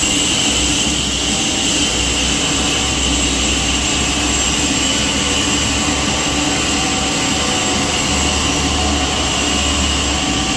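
Sawmill saw running steadily: a constant high whine over a low hum.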